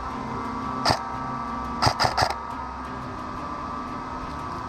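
Airsoft guns firing single shots: one sharp crack about a second in, then three in quick succession near two seconds, over a steady background hum.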